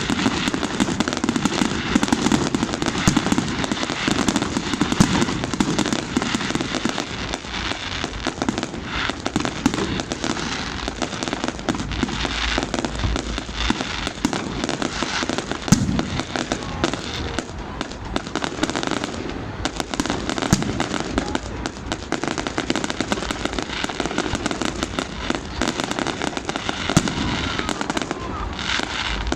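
New Year fireworks going off in a dense, continuous barrage of overlapping bangs and crackles, with no pause.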